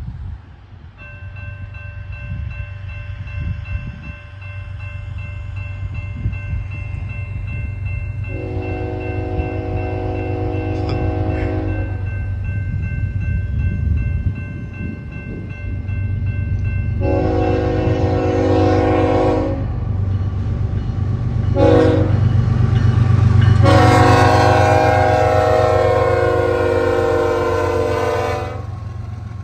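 CSX diesel locomotive's air horn sounding the grade-crossing signal: two long blasts, one short and a final long one, the last the loudest. Under it runs the steady low rumble of the approaching locomotives, growing louder.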